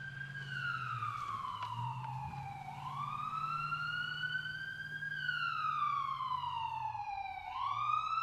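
Siren wailing, its pitch rising and falling slowly about once every five seconds, over a steady low hum.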